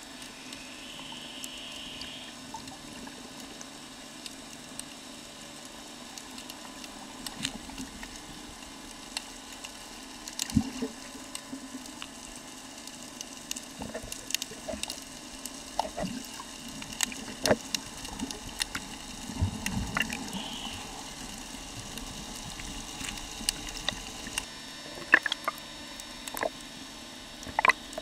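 Underwater ambience picked up by a submerged camera: a steady water hiss with many scattered sharp clicks and crackles.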